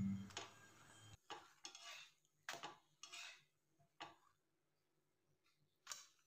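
A handful of faint, short scrapes and clinks of a steel spatula against a cast-iron tawa and a steel plate as a paratha is turned and lifted off.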